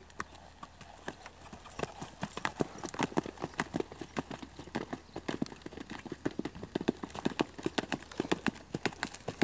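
A horse's hooves clip-clopping in a quick, steady run of hoof strikes that grows louder about two seconds in.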